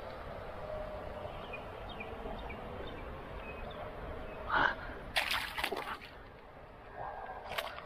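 A common carp (ikan mas) splashing and thrashing in shallow, muddy water as it is handled. A burst of splashes comes about five seconds in.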